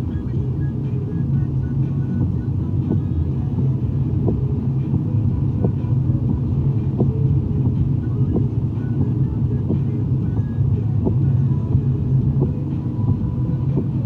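Car driving in traffic on a wet road: a steady low rumble of engine and tyre noise, with a faint click about every second and a half.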